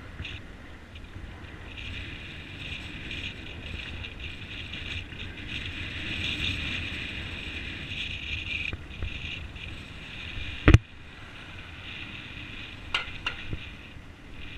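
Wind and riding noise on a bicycle-mounted GoPro camera moving along a city street: a steady hiss over a low rumble. A single sharp knock about three-quarters of the way through is the loudest sound, and two smaller clicks come near the end.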